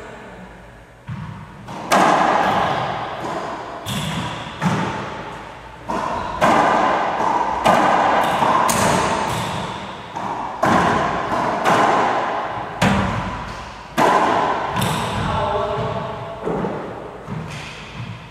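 Racquetball rally: a string of sharp cracks as the hard rubber ball is struck by the racquets and rebounds off the walls and floor. They come irregularly, about every half second to a second and a half, each with a long echo in the enclosed court.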